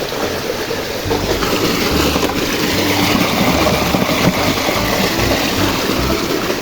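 Water running and sloshing steadily, with background music.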